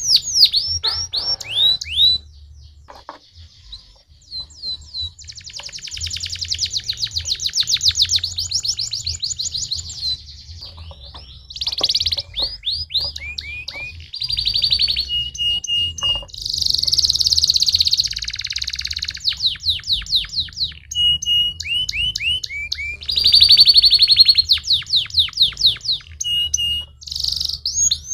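Domestic canary singing a long, fast song of rapid trills and rolls, broken by short level whistled notes, with a quieter stretch a few seconds in. A faint low hum runs underneath.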